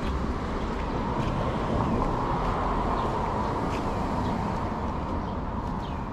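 Outdoor ambience on a walk: a vehicle passing, its noise swelling and fading around the middle, over a low rumble of wind on the microphone.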